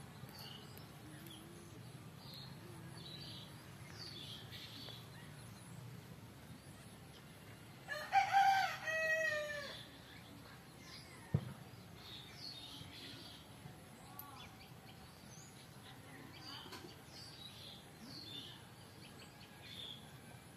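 A rooster crows once, for about two seconds, starting some eight seconds in, over faint, scattered chirping of small birds. A single sharp click follows a couple of seconds later.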